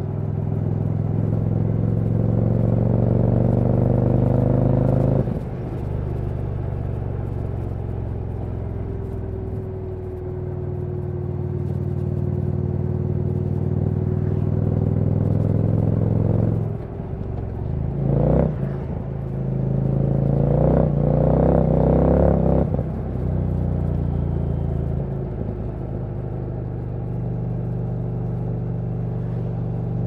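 2022 Indian Challenger V-twin running through a Dr Jekill & Mr Hyde exhaust while riding. The note climbs in pitch under throttle and drops sharply about five and sixteen seconds in, gives louder, rougher bursts of throttle between about eighteen and twenty-two seconds, then settles to a steady cruise.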